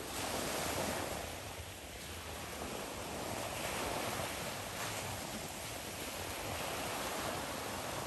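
Sea surf: a steady rush of small waves breaking and washing, swelling louder about every three seconds.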